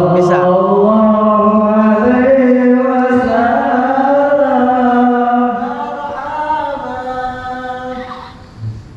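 Male voices chanting an Islamic devotional chant together, drawing out long sung notes that slide slowly in pitch. The chant weakens after about five seconds and fades near the end.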